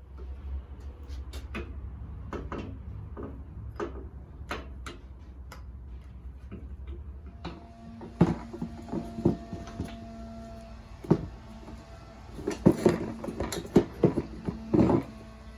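Scattered knocks, clicks and clanks of tools and parts being handled during reassembly work. They come sparsely at first and then thicker and louder in the last few seconds.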